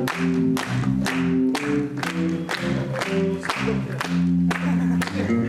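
Live lounge-jazz band playing: held chords over a steady beat of about two strikes a second.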